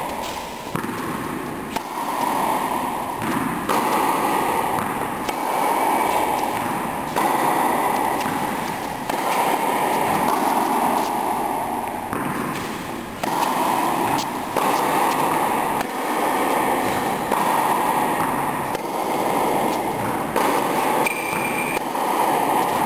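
Tennis balls struck by racket, sharp pops with echo, over a steady rushing noise that breaks off and restarts abruptly several times.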